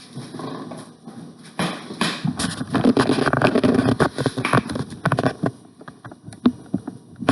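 Shipping box and packing being handled and pulled open: a dense run of rustling, scraping and knocks for a few seconds, then scattered single knocks.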